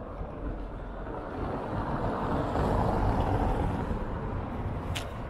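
A motor vehicle passing in street traffic, its rumble swelling about two seconds in and easing off, with a short sharp click near the end.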